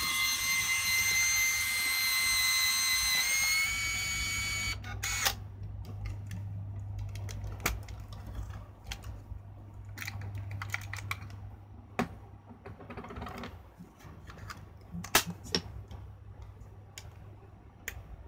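Canon EOS-1's built-in film transport motor rewinding, a steady high whine for about five seconds that stops with a click. After it come scattered sharp clicks and handling knocks as the camera back is opened and the body turned over.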